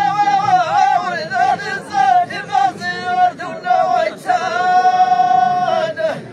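Group of men singing Amazigh sung poetry in unison: a slow, drawn-out chant whose melody wavers through ornamented turns, then settles into long held notes in the second half.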